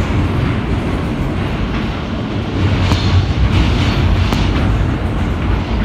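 Running noise inside a Kawasaki R160B subway car moving at speed through the tunnel: a steady loud rumble of wheels on the rails, with two sharp clicks about three and four and a half seconds in.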